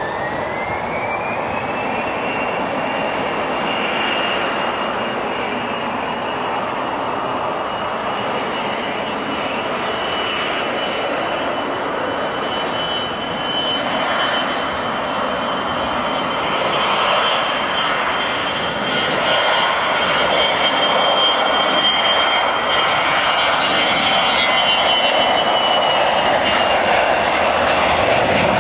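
The two Rolls-Royce BR710 turbofans of a Bombardier Global 6000 business jet, whining with a pitch that rises over the first couple of seconds and then holds steady over the engine roar. The roar grows louder through the second half as power builds for takeoff.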